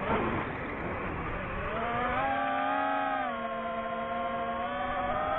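Motors and propellers of a DJI FPV drone whining as they fly. The whine drops away at the start as the throttle comes off, then returns as a quieter hum whose pitch steps up and down with the throttle.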